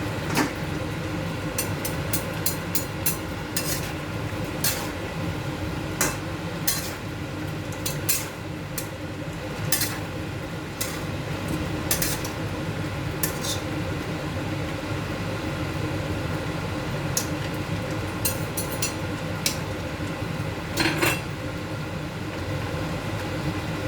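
Metal utensil clinking and scraping against a cooking pot at irregular moments as the coconut curry is stirred, over a steady low hum.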